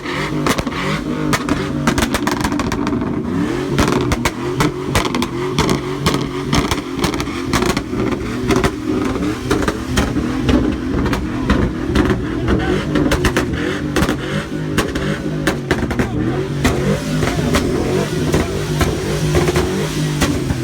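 Truck engine revving while its exhaust flamethrower fires, giving a rapid, irregular run of sharp pops and bangs from the tailpipe over the engine sound.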